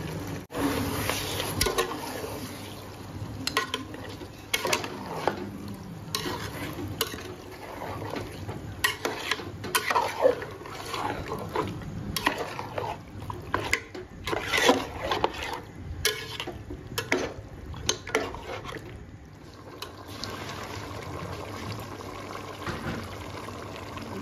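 A spatula scraping and knocking against a metal pot as chicken pieces are stirred through a wet masala, in short, irregular strokes.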